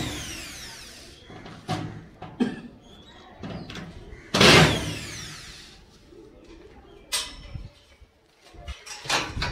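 Corded electric screwdriver driving screws through a ceiling board into the steel frame: a short run of the motor right at the start and again about four and a half seconds in, each time falling in pitch as the motor spins down. Scattered knocks come between and near the end.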